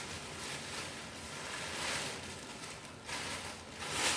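Plastic packaging bag rustling and crinkling in uneven swells as it is handled.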